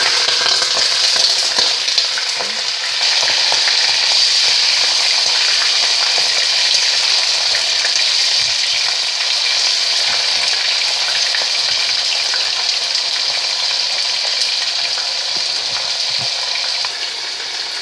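Pork rib pieces sizzling in hot rapeseed oil in a cauldron, just added to the heated oil to sear, with a spatula stirring them. A loud, steady frying hiss that eases a little near the end.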